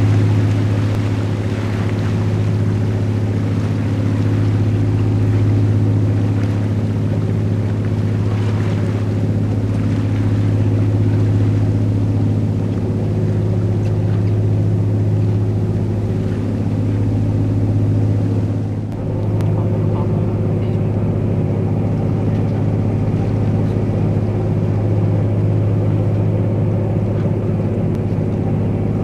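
The Garinko-go icebreaker's engines droning steadily under way: a low hum with steady tones above it. Water rushes past the hull and wake, and the sound dips briefly about two-thirds through.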